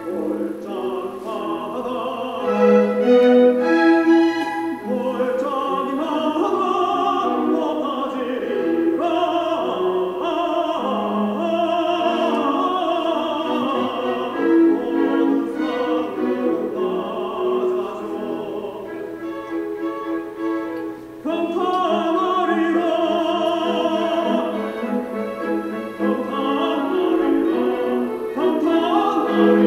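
Classical vocal music: a sung melody of long, held notes over instrumental accompaniment, with a brief drop just after the middle.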